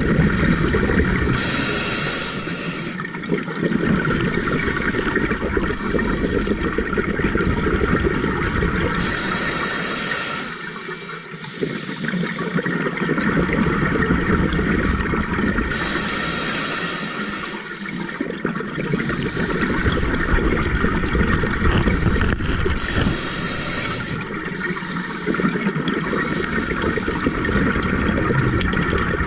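Scuba diver breathing through a regulator underwater: a hiss on each inhalation, about every seven seconds, with a gurgling rush of exhaled bubbles in between.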